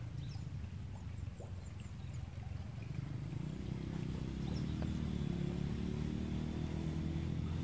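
A small engine running steadily, its drone growing louder about halfway through as it comes closer.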